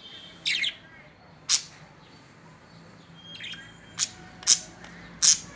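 Lovebirds calling: about six short, sharp, high-pitched chirps at uneven intervals, one fainter than the rest a little past the middle.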